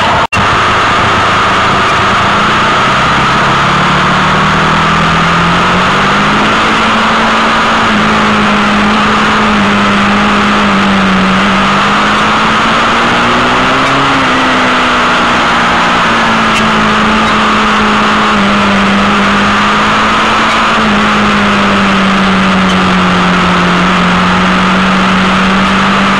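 Onboard sound of a sport motorcycle riding at a steady pace: one engine note holds steady and drifts gently up and down with the throttle through the bends. Heavy wind rush on the microphone runs under it, and there is a brief dropout just after the start.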